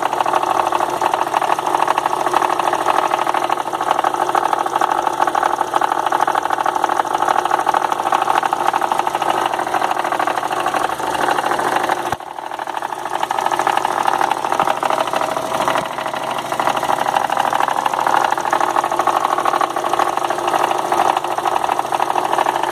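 2002 Volkswagen Golf 2.0 engine running with a rapid, even ticking rattle over the engine sound, with a brief dip in level about midway. It is an intermittent noise of unknown cause that the owner says stops when the air conditioning is switched on, and which is not the A/C compressor.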